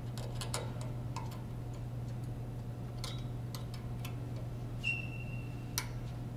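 Steel snap ring being worked into its groove on a pump shaft with snap-ring pliers: scattered light metallic clicks and ticks. Near the end comes a brief high steady tone that ends in one sharp click.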